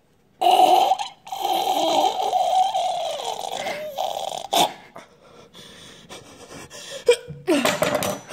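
A person's voice making drawn-out, strained gagging noises, a comic act of swallowing a knife: a short held cry, then a long wavering one that slides down in pitch. A sharp knock follows about halfway through, and a few short breathy grunts come near the end.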